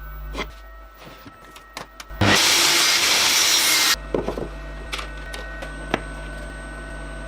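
Wood being worked by hand: scattered light knocks and taps, and a little past two seconds in a loud, even rasping noise that lasts nearly two seconds and stops abruptly.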